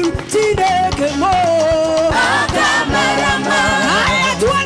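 Gospel music: a choir singing over a steady drum beat.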